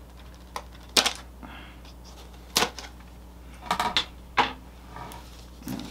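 Scissors snipping and clicking as a small cardboard product box is cut open: a handful of short, sharp snips at irregular intervals, loudest about a second in and again about two and a half seconds in.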